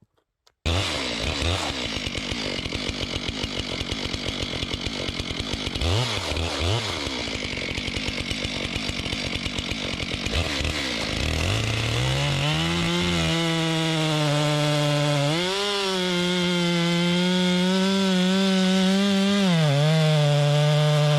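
Chainsaw cutting through wood, its engine note wavering and rough under load. About halfway through it runs free at a steady high pitch, goes higher for a few seconds, then settles back.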